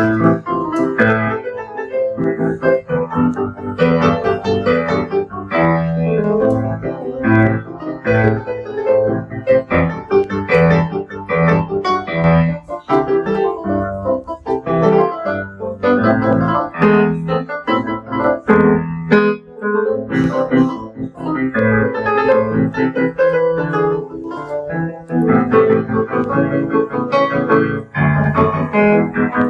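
A piano being played without a break, a steady stream of notes and chords.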